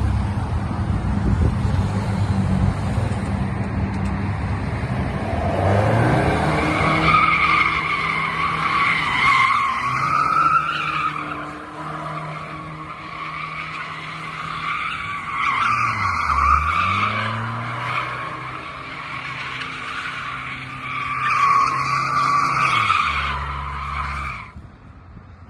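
Car engine running hard under load while its tyres squeal continuously in a drift, the squeal setting in about six seconds in and lasting most of the time. The engine note dips and climbs again about two-thirds of the way through, and everything stops shortly before the end.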